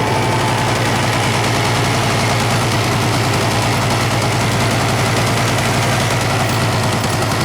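A vehicle engine running steadily at an even speed, a low constant drone with no revving.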